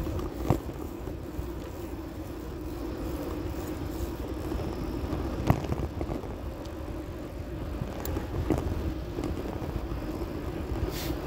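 Bicycle riding on an asphalt path, heard through a phone mounted on the handlebar: a steady rumble of tyres on the pavement, with three short sharp knocks about half a second, five and a half and eight and a half seconds in.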